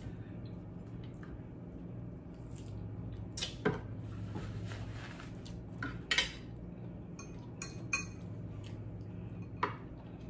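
A fork and dishes clinking: about five short, sharp clinks of a metal fork against a glass bowl and a plate, with a low steady hum underneath.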